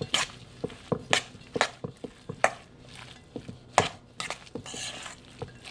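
A utensil stirring a thick mashed potato and mushroom filling in a stainless steel mixing bowl, knocking and scraping against the metal in irregular strokes, with a couple of louder knocks in the middle.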